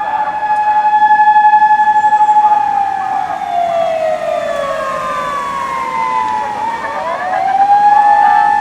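Japanese police patrol car siren wailing: a steady high tone that slides slowly down over a few seconds, then rises again about seven seconds in and holds.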